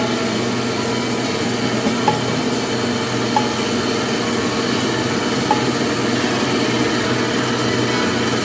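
CNC lathe running and cutting: a steady machine hum under a dense rubbing, scraping cutting noise, with a few brief high chirps every second or two.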